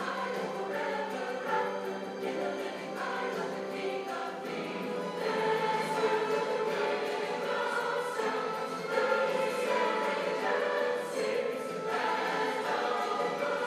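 Choral music: a choir singing sustained harmonies, growing a little louder about five seconds in.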